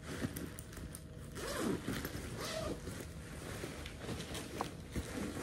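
Double zipper on a canvas backpack being slid along its track in a few strokes.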